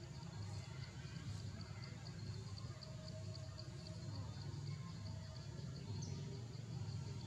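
Forest ambience: an insect chirping in a steady high-pitched pulse, about five chirps a second, over a low steady rumble.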